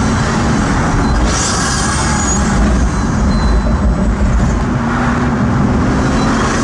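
Pagani Huayra's twin-turbo V12 heard from inside the cabin while driving slowly, a steady low engine drone that swells slightly about halfway through.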